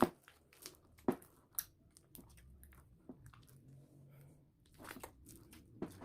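Runny slime being worked, with scattered sticky clicks and small crackling pops, the loudest right at the start and about a second in.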